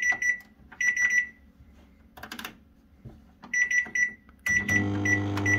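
Samsung microwave oven's control panel giving groups of short, high beeps as its dial is turned, with a few clicks from the knob. About four and a half seconds in, the oven starts running with a steady hum.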